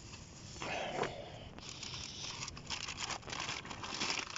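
Plastic bags rustling and crinkling as hands rummage through them.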